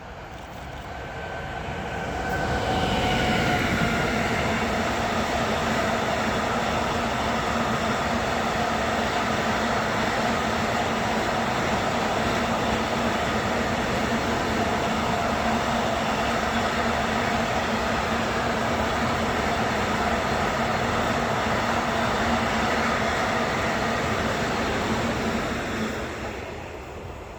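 A train approaches and passes close by: several whining tones drop in pitch as it arrives, then a long steady rumble and clatter of wagons goes by for over twenty seconds before fading near the end.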